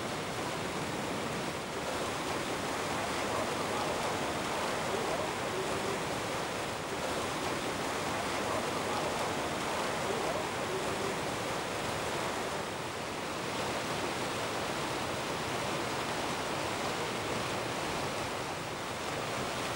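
Steady rushing noise with no distinct events.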